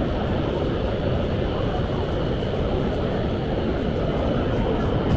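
Steady din of a busy exhibition hall, an even rumble with no distinct events.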